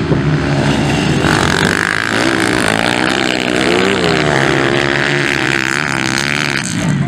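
Dirt-bike engines running and revving on a motocross track, their pitch climbing and dropping as the riders work the throttle through the course. Several bikes are heard at once.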